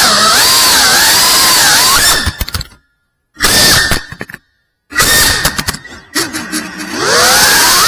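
Cinewhoop FPV drone's motors and propellers whining, the pitch rising and falling with the throttle. About two seconds in the sound breaks into a clatter of clicks and cuts out twice for about half a second each, then the motors spool back up with a rising whine near the end.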